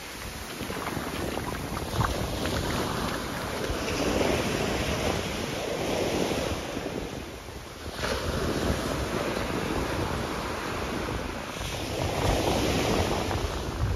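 Small surf washing up the sand at the shoreline, the wash swelling and easing every few seconds, with wind buffeting the microphone.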